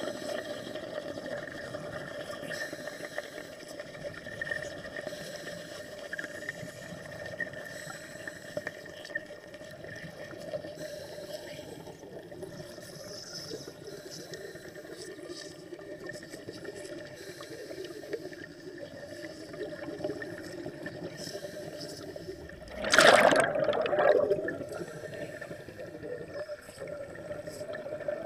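Steady underwater gurgling and trickling with a constant hum, broken near the end by a loud noisy burst lasting about a second and a half.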